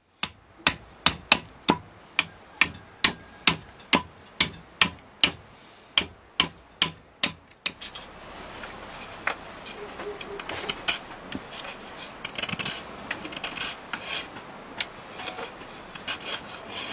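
Hand-carving boxwood: a tool knocks sharply into the wood about two and a half times a second, then from about eight seconds in the knocking gives way to a continuous scraping and rasping of the wood.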